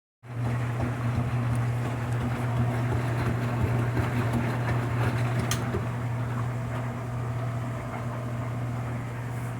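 Enxuta washing machine running a wash cycle with a double-bed comforter inside: a steady motor hum under a rough, uneven churning noise, with one short click about halfway through.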